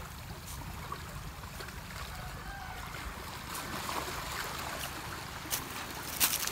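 Steady wash of water on a pebble shore, with a few sharp clicks, the loudest near the end.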